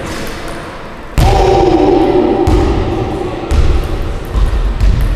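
Basketballs bouncing on a wooden gym floor in a large echoing hall, a few separate thuds in the second half. About a second in a loud sudden thump sets off a drawn-out tone that fades over about two seconds.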